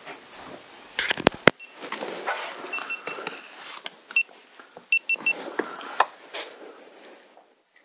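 Rustling handling noise of someone moving about and handling gear, with a quick cluster of sharp knocks about a second in. Several short, high electronic beeps come in small groups through the middle, and the rustling fades out just before the end.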